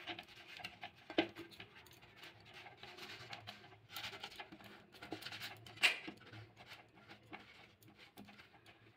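Faint handling sounds of eggplant rings being rubbed by hand with salt and turmeric and set down on a plate: soft rubbing with a few light taps, the clearest about a second in and near six seconds.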